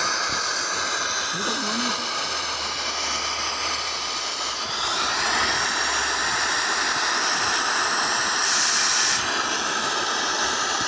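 Heavy machinery running steadily: a constant loud hiss with a faint low hum underneath.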